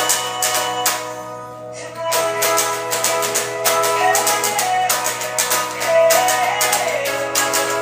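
Electric guitar strummed in a steady rhythm of chords, fretted high up the neck. The strumming drops off about a second in and picks up again a second later.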